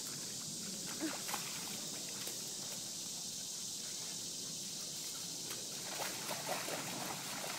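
Dogs wading and splashing in a shallow creek, with a few short splashes about a second in that grow busier near the end, over a steady hiss of outdoor ambience.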